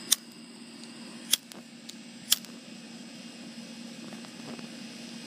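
A handheld lighter clicked three times, about a second apart: sharp, bright clicks, over a steady background hum.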